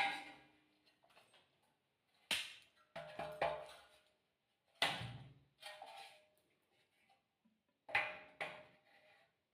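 Several separate metallic knocks and clinks, mostly in pairs about half a second apart, each with a short ring, as metal parts or tools are handled.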